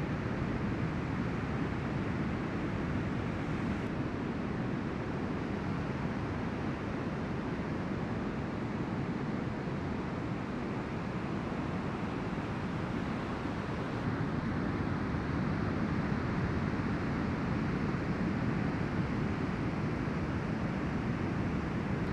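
Ocean surf breaking on a beach: a steady wash of noise with no distinct crashes, growing slightly louder about two-thirds of the way through.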